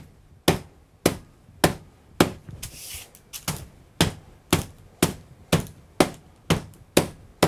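Heavy-bottomed stainless-steel saucepan tapping repeatedly on thin beef slices between sheets of parchment paper on a plastic cutting board, about two taps a second, with a brief brushing sound about three seconds in. The light pounding flattens the slices thin for carpaccio.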